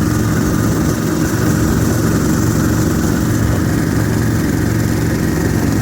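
Yanmar diesel engine of an Ockelbo snowmobile running steadily as the sled drives along, with a fast, even engine beat and no change in speed.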